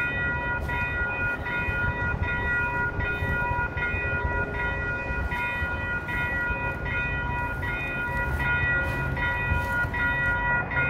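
Railroad crossing warning bell ringing at an even rhythm, about four strokes every three seconds, signalling an approaching trolley while the gates are down. A low rumble lies underneath.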